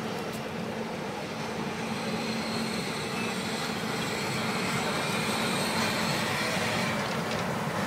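Steam-hauled train's passenger coaches rolling past on the track: a steady rumble and wheel noise with a low hum, slowly getting louder.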